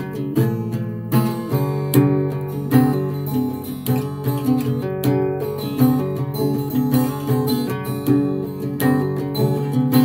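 Background music: a strummed guitar tune, with a chord struck a little more often than once a second.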